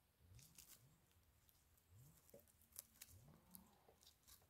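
Near silence, with a few faint, scattered crackles and ticks of a hand brushing dry spruce needles and twigs around chanterelle mushrooms.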